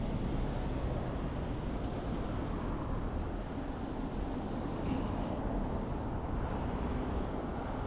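Steady low rumble of vehicle road noise, with a faint tick about five seconds in.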